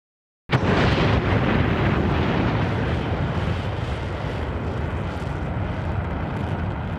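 Jet-thrust roar sound effect for a flying monster turtle. It starts abruptly about half a second in and runs steadily, with a heavy low rumble, easing off slightly near the end.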